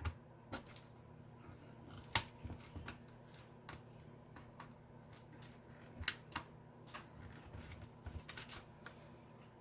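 Scattered sharp clicks and small metallic snaps from prying at a Commodore 64's metal RF shield to work it off the circuit board, with the two strongest about two and six seconds in.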